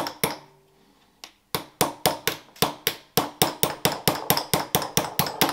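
Hammer blows punching the small pivot axles out of a Toyota C60 six-speed gearbox's shifter linkage, each strike ringing briefly. One blow, a pause of about a second, then a fast run of blows that speeds up to about five a second.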